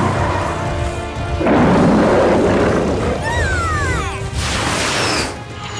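Cartoon soundtrack: background music with a loud rumbling whoosh about a second and a half in, then a few falling, swooping sound effects and a second, higher whoosh near the end.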